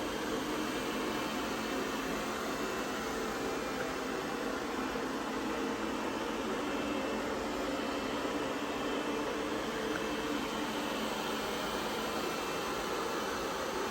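XIEBro HR101 robot vacuum-and-mop running a spot-cleaning cycle: a steady whir of its suction fan and brushes.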